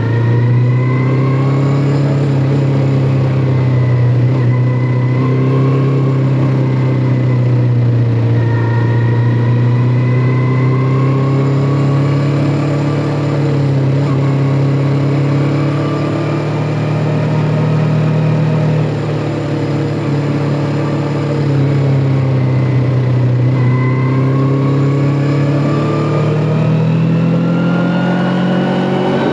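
Kawasaki Ninja 400's parallel-twin engine running at speed, its pitch rising and falling repeatedly as the rider accelerates and eases off, with long climbs in revs.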